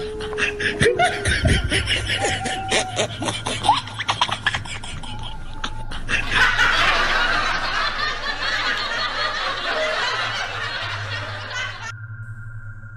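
Loud laughter over a scramble of cries in the first few seconds, continuing as a busy wash of laughter. It cuts off abruptly about twelve seconds in, giving way to a few steady held musical tones.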